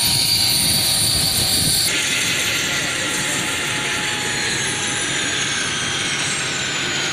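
Chinook tandem-rotor helicopter's turbine engines whining over steady rotor noise. After a cut about two seconds in, the whine falls slowly in pitch.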